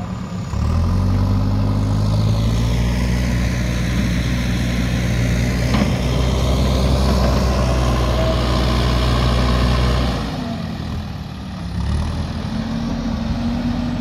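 JCB backhoe loader's diesel engine working under load: it revs up about half a second in, runs high and steady, drops back around ten seconds in, then picks up again near the end. A single clank about six seconds in.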